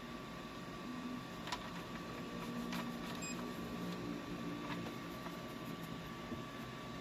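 Creality CR-10 Smart 3D printer running, its stepper motors humming in short moves over a steady high whine, with a few sharp clicks.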